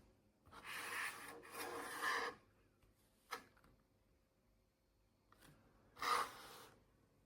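Handling noises: two short rubbing or scraping sounds near the start, a sharp click about three seconds in, and another scrape about six seconds in.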